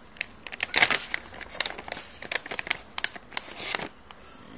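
A treat packet's wrapper crinkling and crackling as it is handled and opened, in irregular quick crackles that stop about four seconds in.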